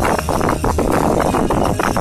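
Fireworks going off in a rapid, continuous barrage, many bangs and crackles a second.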